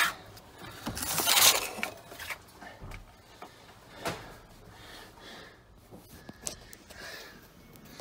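Handling noise as a reciprocating saw is pulled back out from under a metal safe: a brief scraping rustle about a second in, then faint scattered clicks and light metallic clinks.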